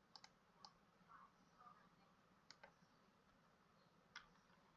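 Near silence with a few faint, scattered clicks from computer input, such as keys or a mouse, over a low steady hum of room tone.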